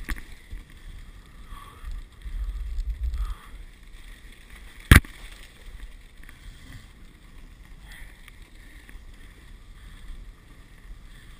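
Dog sled gliding over a snow trail: steady runner hiss with wind buffeting the microphone for the first few seconds, and one sharp knock about five seconds in.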